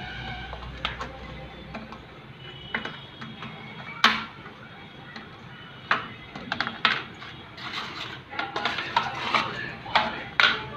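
German Shepherd puppy chewing and knocking a small plastic object against a hard floor: irregular clicks and clatters, a sharp knock about four seconds in, and a quick run of clatters in the last few seconds.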